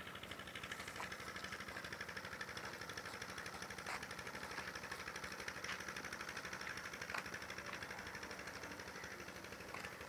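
An engine running with a steady, fast pulsing, and a few soft clicks over it.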